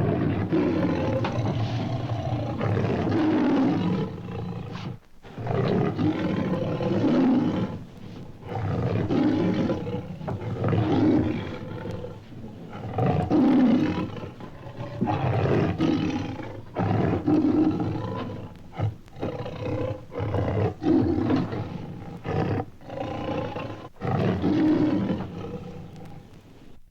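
Lion vocalising restlessly on an old sound-effects record: a sudden long call at the start, then a string of shorter roaring calls roughly every one to two seconds.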